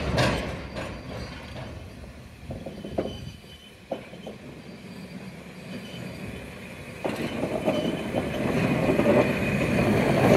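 Toyama Chiho Railway DEKI 12021 electric locomotive with two hopper wagons pulling out of a station. A few separate knocks come in the first four seconds. From about seven seconds in, its running noise gets steadily louder as it comes close, with a high squeal near the end.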